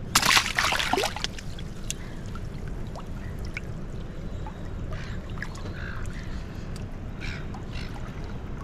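A short splash in the first second as a released bream drops back into the water, then steady low water noise with a few faint ticks.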